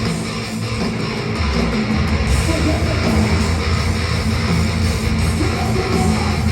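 Live metalcore band playing loud, with distorted electric guitars, bass and drums. The low end thins out briefly near the start and comes back heavy about a second and a half in.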